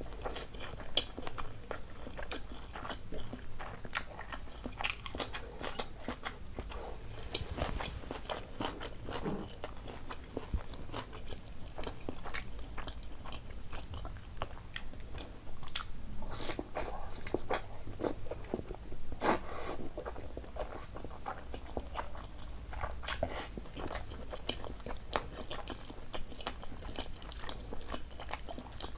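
A person chewing and biting food close to the microphone: irregular crunchy bites, clicks and smacking mouth sounds, with a run of louder bites a little past the middle.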